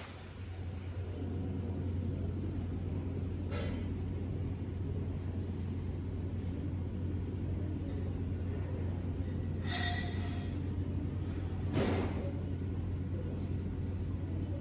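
A steady low mechanical hum, with three short hissing noises about three and a half, ten and twelve seconds in.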